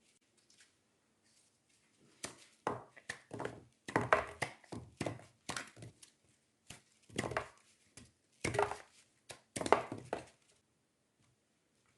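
An irregular run of short scrapes and knocks from utensils and food being handled in a kitchen, starting about two seconds in and stopping near the end.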